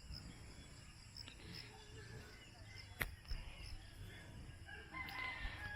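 Faint outdoor ambience of insects trilling steadily in high thin tones, with a single sharp click about three seconds in and a few short faint calls near the end.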